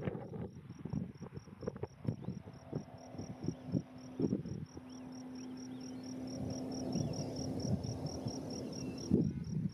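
A cricket chirping in a steady, even train of short high pulses, about four to five a second, over a low, gusty rumble of wind on the microphone.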